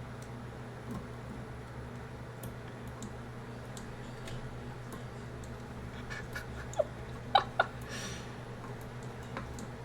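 A tiny screw being driven into the fan mount of a mini PC: faint scattered ticks and scrapes, with three sharper clicks about seven seconds in, over a steady low hum.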